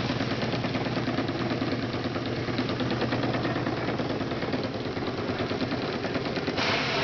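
Engine-driven lechuguilla fibre-stripping machine running steadily, with a fast, even beat. A louder hiss comes in near the end.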